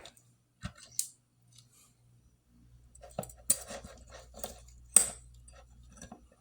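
Metal clicks and light scraping of Sig Sauer P250 pistol parts being handled and fitted together during reassembly: a few isolated clicks, then a busier run of clicks about halfway through, the loudest one near the end.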